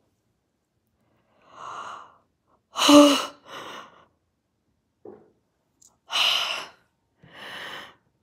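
A woman's pained breathing: about six sharp, hissing breaths in and out, the loudest about three seconds in with a brief voiced gasp. It is her reaction to a fresh scald from hot tea on her leg.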